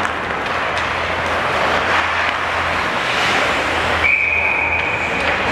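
Ice rink noise of skating play, then a referee's whistle blown about four seconds in: one steady shrill blast of about a second and a half, stopping play.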